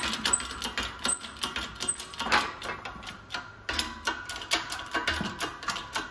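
Rapid, irregular metallic clicking and ticking as a hydraulic shop press pushes a wheel stud out of a Mazda RX-8 front wheel hub, with a sharper metallic knock at the very end as the stud comes free.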